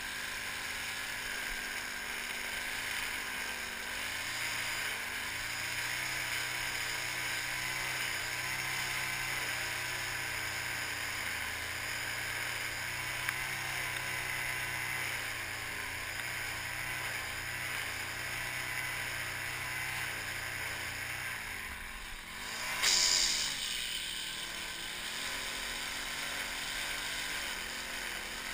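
String trimmer motor running steadily as it cuts grass at the lawn edge. About 22 seconds in the motor dips and then revs back up, with a brief loud burst, the loudest moment.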